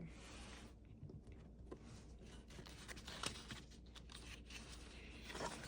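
Faint rustling of paper pages being handled and turned in a planner refill, with a slightly louder page rustle near the end.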